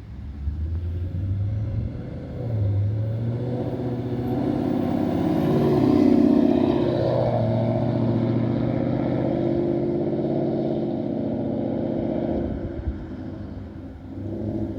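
2019 Ford Mustang GT's 5.0 V8 running through a Roush axle-back exhaust with an X-pipe in place of the factory resonator. The engine note rises about two seconds in, is loudest near the middle and eases off near the end.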